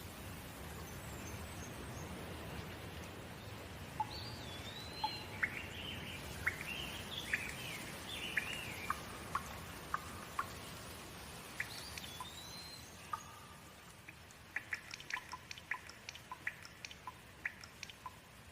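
Steady rain falling, easing off a little partway through, with a bird chirping several quick calls in the middle. Near the end comes a quick run of short, sharp ticks.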